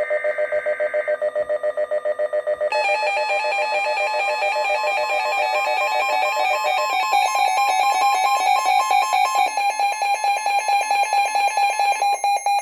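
Weather radio's warning alarm sounding for an incoming severe thunderstorm warning: a loud, rapid electronic beeping of several stacked tones, which grows fuller about three seconds in.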